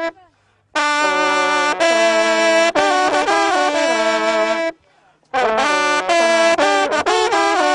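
French hunting horn (trompe de chasse) playing a hunting fanfare in quick, loud brass phrases. It stops briefly just after the start and again about two-thirds of the way through, and the last phrase has rapid repeated notes.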